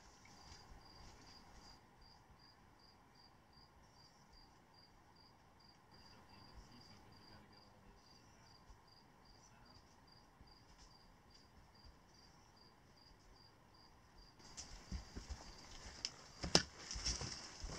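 Faint insect chirping, cricket-like, in an even high-pitched rhythm of a little over two chirps a second. From about three-quarters of the way in, hikers' footsteps and trekking poles click and thud on the rocky trail, growing louder as they come close.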